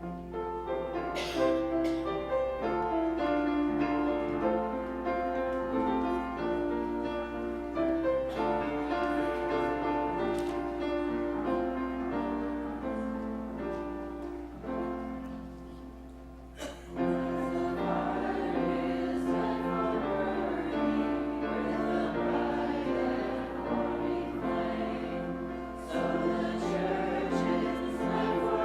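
Choir singing with instrumental accompaniment, in held, stepping notes; the music starts sharply, dips briefly a little after halfway, then comes back in. A steady low electrical hum lies underneath.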